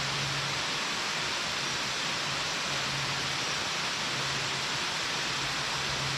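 Large waterfall pouring steadily: a dense, even rush of falling water, with no breaks or changes.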